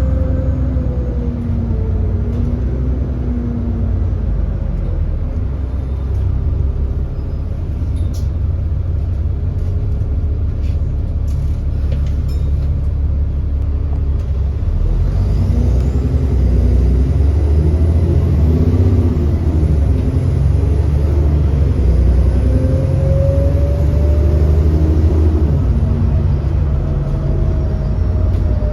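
Cummins ISB 6.7-litre diesel engine of an Alexander Dennis Enviro400 double-decker bus running under way with a deep, steady rumble. The engine's pitch falls over the first few seconds, then rises and falls again in the second half. This bus has an exhaust leak.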